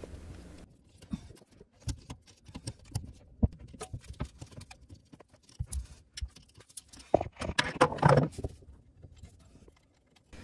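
Irregular small metallic clicks, taps and rattles of a screwdriver working out the screws of an old kitchen faucet's mounting bracket under the sink, with a busier patch of clatter about three quarters of the way through.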